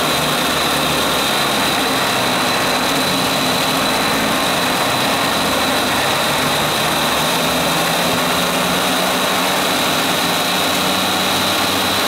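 Four O.S. Max 46LA two-stroke glow model aircraft engines running at once on a test board, being run in. They give a loud, steady buzz with a high whine running through it.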